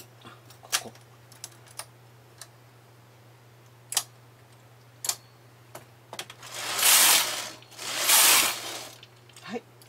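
Light metal clicks of a hand transfer tool and latch needles on a knitting machine's needle bed as stitches are moved between the main bed and the ribber. Near the end come two louder rasping swishes, each about a second long.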